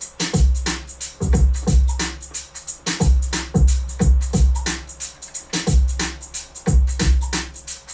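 Programmed electronic drum groove playing back from a computer: a repeating pattern of deep kick drums under quick, evenly spaced hi-hat ticks. It is the song's original live drum groove rebuilt digitally.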